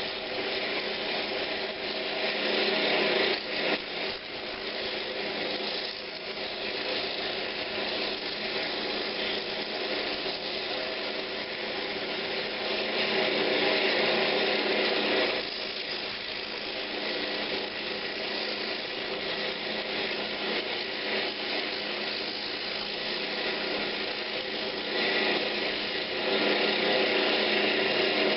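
Wood lathe running with a steady motor hum while coarse sandpaper is held against a spinning pine knob, giving a rasping hiss. The hiss swells louder at times as the pressure changes.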